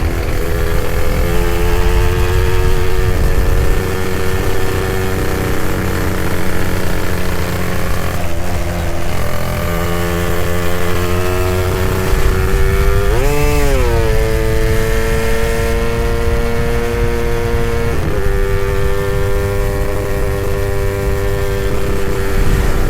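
Suzuki Satria 120 two-stroke single-cylinder motorcycle engine running on the road at steady cruising revs, with a few gear changes. A little past halfway the revs rise and drop sharply once.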